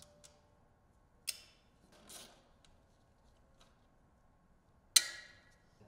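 A few faint clicks and a short scrape from a 10 mm socket wrench and small fasteners being handled, with one sharper metallic clink that rings briefly near the end.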